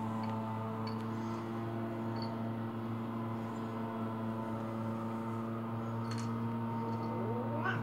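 Adult domestic cat growling, a low, steady, unbroken rumble, rising in pitch into a short yowl near the end: a warning to an unfamiliar kitten.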